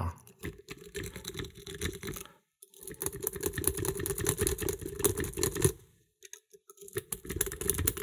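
Wave rake scraped rapidly in and out of the keyway of a Castle 18-pin brass padlock under tension, a fast run of small metallic clicks as it skips over the pins. It comes in three bursts, pausing briefly about two seconds in and again near six seconds.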